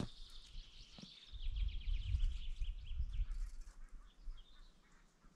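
A small songbird sings a fast trill of high chirps for about three seconds, the notes falling slightly in pitch, then a few scattered chirps. Under it is a low rumble, loudest in the middle.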